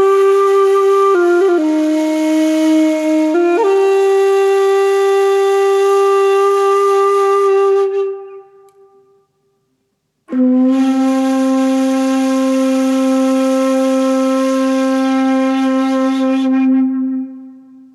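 Solo flute-like wind instrument playing long held notes: a phrase that steps down and back up to its first note and fades out about eight seconds in, then after a short silence a single lower note held for about seven seconds.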